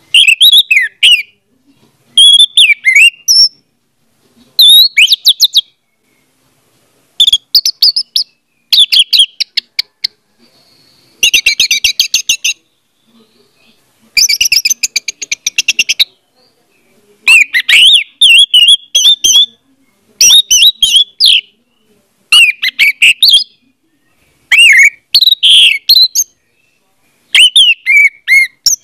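Orange-headed thrush singing loudly: a run of short, varied whistled phrases about a second or two long, separated by brief pauses, with two phrases of rapidly repeated notes near the middle.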